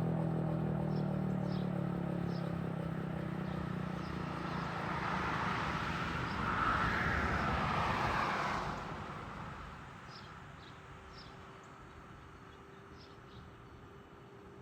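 Federal Signal Model 5 outdoor warning siren winding down, its low tone fading over the first few seconds: a siren that sounds sick and needs new bearings. A car passes in the middle, and birds chirp over a faint steady hum afterwards.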